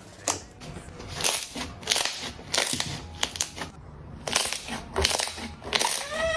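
Slime being squeezed and pressed by hand, making a run of wet crackling squishes about every half second. A short rising squeak comes near the end.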